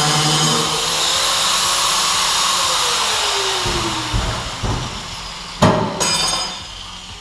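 Handheld power cutting tool grinding through the aluminium floor plate of a boat hull to open the hole for the jet intake: a steady high whine with grinding noise, then the tool winds down with a falling pitch about three seconds in. A few knocks follow, the loudest a sharp clack near the end.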